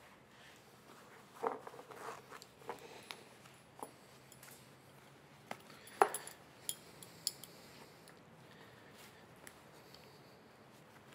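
Metal belt buckle on jeans being fiddled with: a scattered series of light clicks and clinks with some rustling of the denim, the loudest clink about six seconds in.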